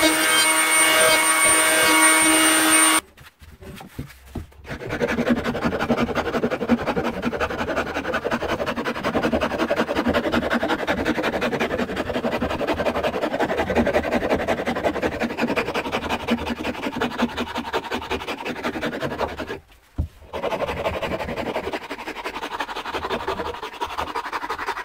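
An electric hand planer motor runs for about three seconds and stops. After a short pause, a hand file rasps steadily along the oak handle in quick strokes, with a brief break near the end.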